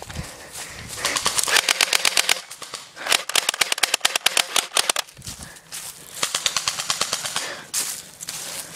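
Airsoft gun firing in three rapid bursts of about ten shots a second, each a run of sharp cracks.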